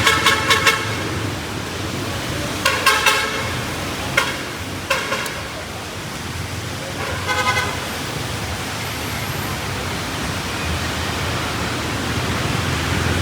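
Vehicle horns honking in street traffic: a quick run of short toots at the start, then several more short honks over the next seven or so seconds. Under them is a steady hiss of rain and passing traffic.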